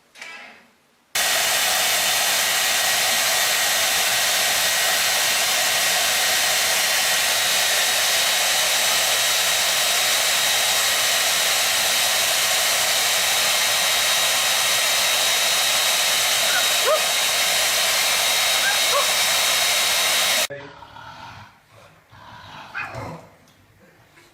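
A loud, steady rushing noise with a faint high whine in it. It starts abruptly about a second in and cuts off abruptly near the end, with a few faint short rising squeaks shortly before it stops.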